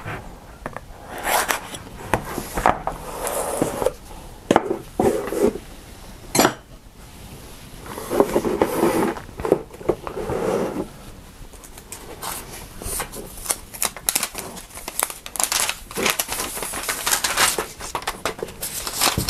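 A cardboard phone box being handled and opened, with irregular scraping and rustling and a few sharp clicks. Near the end a protective paper sheet and plastic film crinkle as the phone is lifted out.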